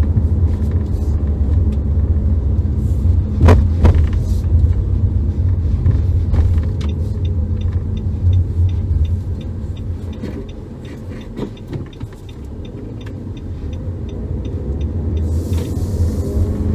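Car engine and road rumble heard from inside the cabin while driving slowly, low and steady, with a couple of sharp knocks about three and a half seconds in. From about halfway through, the turn-signal indicator ticks at an even pace, about three clicks a second, for several seconds while the rumble eases.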